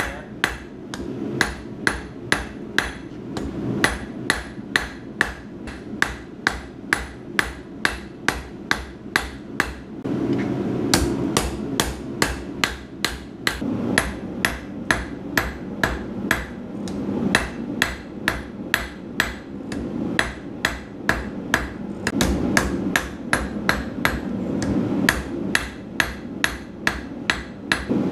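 Hand hammer striking a red-hot steel bar on an anvil in a steady rhythm of about three blows a second, each blow with a short metallic ring: hand forging.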